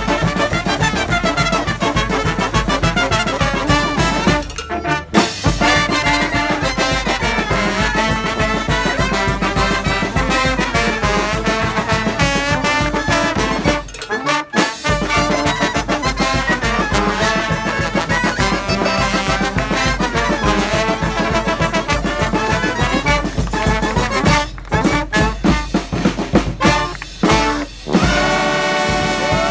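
A brass street band with trumpets, trombones, saxophones and drums plays a lively tune. The whole band stops briefly twice, about 4.5 and 14 seconds in. Near the end it hits a run of short stabs and then breaks off.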